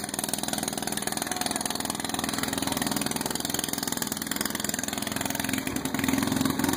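Riding lawn mower engines idling steadily, their firing making a fast, even pulse.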